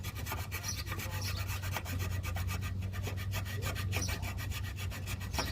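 Hand file rasping back and forth over the cut edges of a metal quick disconnect, in rapid, even strokes.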